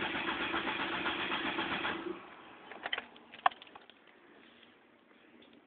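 1998 Ford Escort ZX2's four-cylinder engine, fitted with a Borla exhaust, idling steadily, then cutting out abruptly about two seconds in. A few sharp clicks follow, the loudest about a second after the engine stops.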